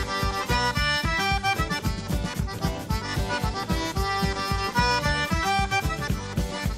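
Upbeat accordion-led traditional dance music with a steady beat, instrumental with no singing.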